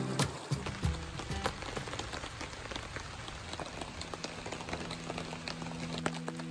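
Rain pattering steadily on a tarp, with many small sharp drop ticks. Soft background music with held notes comes back in about four seconds in.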